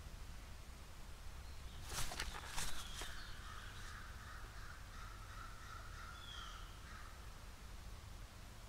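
A cluster of sharp knocks and rustles about two seconds in as a turkey vulture moves at the patio feeder trays. After it, a bird calls in the background for a few seconds, and a faint short chirp repeats every few seconds.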